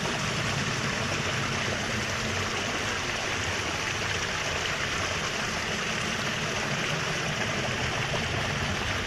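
Water running steadily through a concrete irrigation channel and spilling over a small step, a constant rushing.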